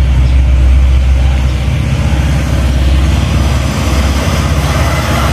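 Heavy diesel engine of an approaching intercity coach, a low steady rumble. About five seconds in the rumble eases and tyre and road noise grow as the coach draws near.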